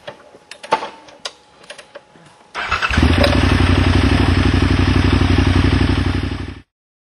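A few light clicks and knocks, then a motorcycle engine fires up about two and a half seconds in and runs loud and steady at idle, with no revving, before cutting off suddenly.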